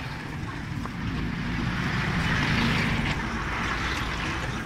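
Road traffic passing close by, a steady rumble and hiss that swells as a vehicle goes past between about two and three seconds in.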